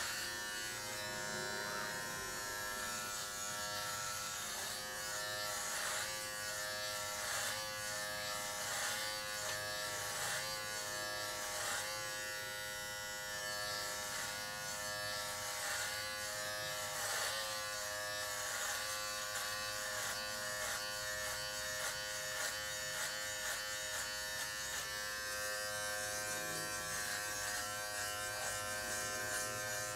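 Philips Norelco MG9000 cordless trimmer running with a steady buzz while clipping hair short on a head through a 1 mm guard. Its pitch dips briefly several times in the first half.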